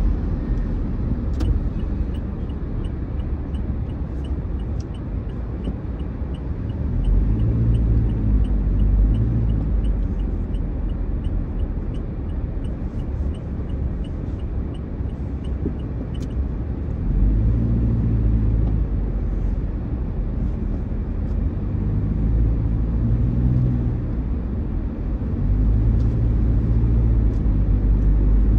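Road and engine rumble heard from inside a car cruising in highway traffic, swelling several times. A turn-signal indicator ticks evenly at about three clicks a second for about fifteen seconds, then stops.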